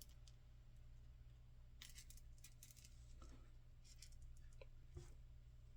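Faint, scattered small clicks and light metallic ticks of a lock cylinder and small metal tools being handled, over a steady low hum.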